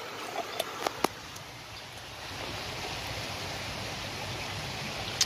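Steady rush of running creek water, with a few light clicks and taps in the first second.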